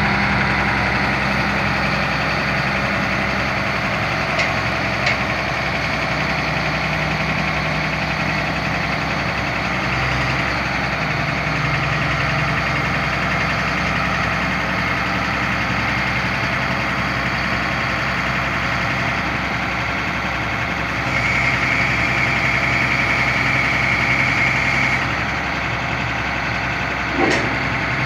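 Diesel engine of a 1999 Sterling boom truck running steadily while its National crane boom is worked. A louder high whine joins for about four seconds past the middle, and a single sharp clank comes near the end.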